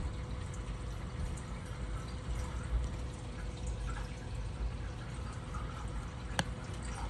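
Reef aquarium water circulating: a steady low rumble from the pumps with light trickling and dripping, and a faint steady hum. A single sharp click comes about six seconds in.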